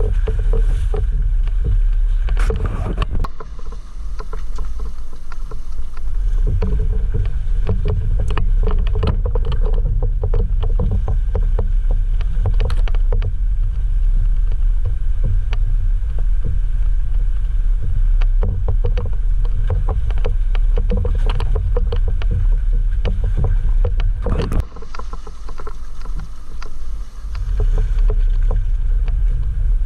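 Jeep JL Rubicon driving over a rough off-road trail: a steady low rumble with frequent knocks and rattles. The rumble drops briefly twice.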